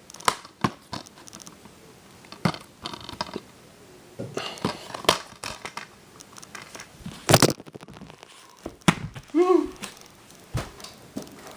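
Plastic shrink-wrap being torn and crinkled off a DVD case, with scattered sharp clicks and taps as the case is handled.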